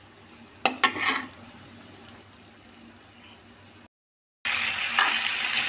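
A spatula knocks and scrapes against a non-stick kadhai a few times about a second in. After a brief cut to silence, a loud, steady sizzling of paneer and onion-tomato masala frying in the pan takes over near the end.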